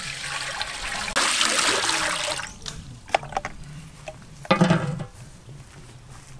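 Water poured from a metal bowl into a large aluminium cooking pot, the splashing growing louder about a second in and stopping after about two and a half seconds. A few metal clicks follow, then a short clatter as the aluminium lid goes onto the pot.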